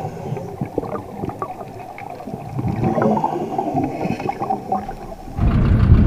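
Muffled underwater sound from a submerged camera beside an anchor and chain: gurgling water and bubbles with scattered clicks. Near the end it cuts suddenly to a loud low rumble above the water.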